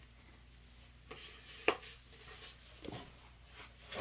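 Large rolled paper poster being handled and unrolled: a few short crackles and rustles of the stiff paper, the loudest a little under two seconds in.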